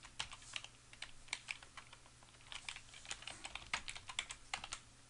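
Typing on a computer keyboard: a run of irregular, fairly faint keystroke clicks, with a short pause about halfway through.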